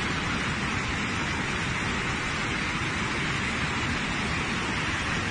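Steady rushing of a muddy flash-flood torrent sweeping through a street.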